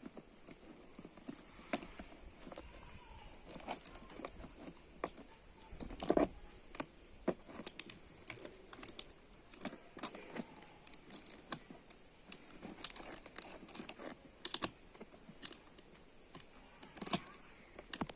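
Light metallic clicks and rattles of a saw chain being handled and fitted onto the guide bar and drive sprocket of an angle-grinder chainsaw attachment, coming irregularly, with louder clattering about six seconds in and again near the end.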